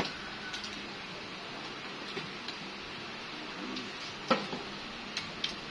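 Chopsticks clicking now and then against ceramic bowls and plates while people eat, a few short sharp clinks with the loudest about four seconds in, over a steady low background hiss.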